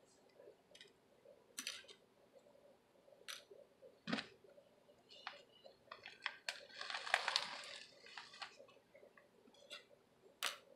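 Guinea pig eating hay from a bowl: irregular, crisp crunching clicks, with a longer rustling stretch about seven seconds in.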